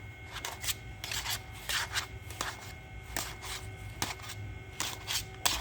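Plastic 3.5-inch floppy disks being handled and shuffled: a run of irregular short clicks and rustles.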